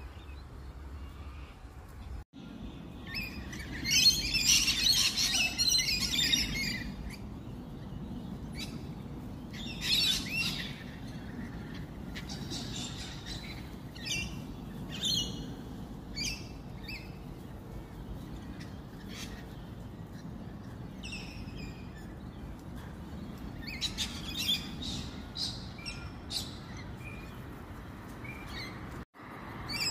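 Wild birds calling: bursts of high chirping and twittering from several birds, densest a few seconds in, then scattered calls, over a steady low background rumble.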